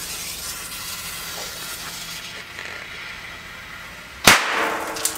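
Lit M-150 firecracker's fuse hissing for about four seconds, then one sharp bang with a short ring after it, and a small pop just before the end.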